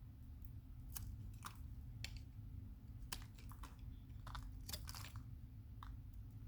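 Dry Camay bar soap being cut and crumbled: a dozen or so irregular, crisp crunches and cracks as the brittle soap breaks apart.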